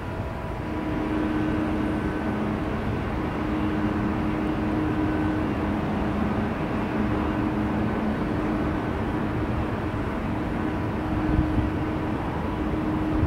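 Jet airliner engines running: a steady rush of noise with a low, steady hum over it.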